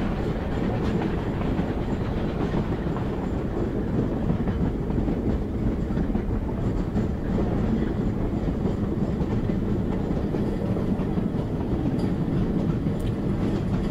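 Narrow-gauge passenger train running along the track, heard from an open car: a steady, even noise of wheels on the rails.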